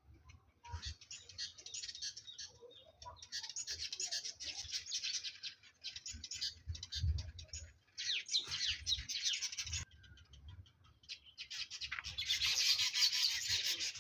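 Small birds chirping and singing in several bursts of a few seconds each, with a low rumble underneath.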